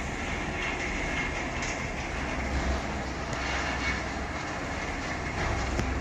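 Inclined elevator car running along its rails up the sloped shaft: a steady rumble and hiss with a few faint clicks.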